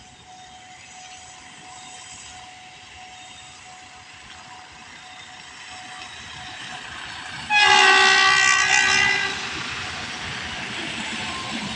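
An SRT Alsthom diesel-electric locomotive approaches with its rumble growing, then sounds one long horn blast of about two seconds, a little past halfway through. The train's running noise carries on louder after the horn.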